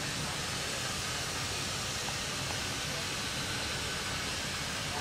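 Steady hiss of steam from standing steam locomotives, with a low rumble underneath.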